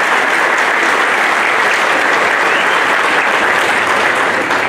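An audience clapping, a steady, dense round of applause.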